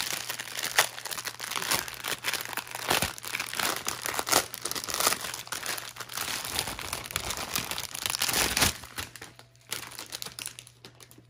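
Clear plastic bag of diamond-painting drills crinkling and rustling as it is handled and opened. The crackling is dense and busy, then dies down to light handling about nine seconds in.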